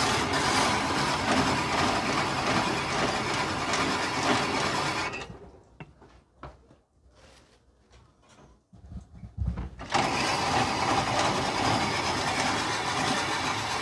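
Old-style cast-iron ice-shaving machine grinding a block of ice into fine shaved ice, a steady grinding rasp. It stops about five seconds in, leaving a few light clicks and knocks, and starts grinding again about ten seconds in.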